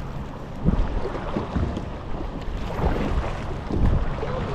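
Rushing water of a river rapid, with wind buffeting the microphone in irregular low gusts.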